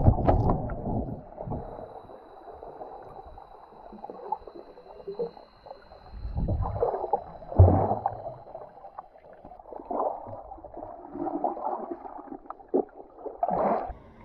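Muffled underwater sound through an action camera's waterproof housing: water churning and bubbling in uneven swells, loudest at the start, about halfway through and near the end.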